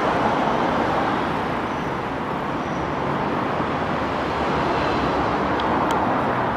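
Loud, steady rush of motorway traffic passing overhead, an even wash of tyre and engine noise.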